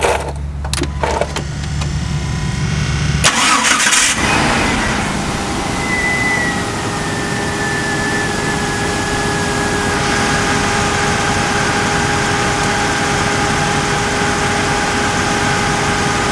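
Car engine cranked and started about three seconds in, then settling into a steady idle. A thin whine slowly drops in pitch a few seconds after it catches.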